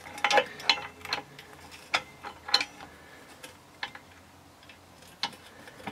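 Light metal clicks and taps of a steel gear selector fork and its shaft being worked into place against the selector drum in an aluminium motorcycle crankcase: a quick cluster at the start, then single clicks every half second to a second.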